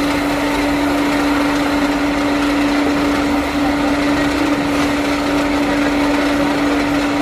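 Electric motor running with a steady hum and a constant whirring noise.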